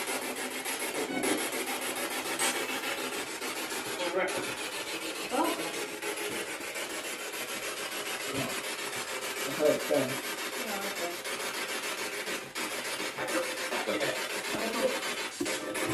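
Spirit box radio sweeping through stations: a steady scratchy hiss of static, broken every second or two by short chopped snatches of sound.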